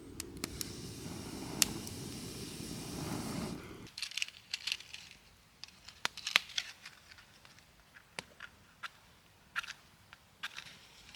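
Wood campfire crackling, with sparse sharp snaps and pops. A steady low rushing noise underneath stops abruptly about four seconds in.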